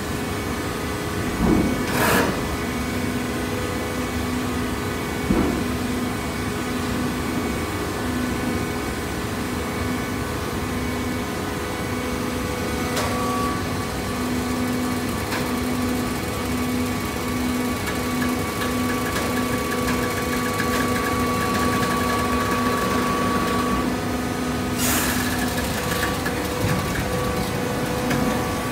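Shredded-paper baling press running: a steady machine hum with a few constant tones, one of them pulsing on and off. A short burst of hiss about two seconds in, and a longer one near the end.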